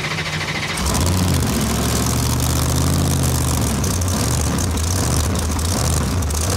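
Monster truck's supercharged 565-cubic-inch methanol-burning engine running with a deep, steady drone. It gets louder about a second in, and its pitch rises and falls once around the middle as it is revved.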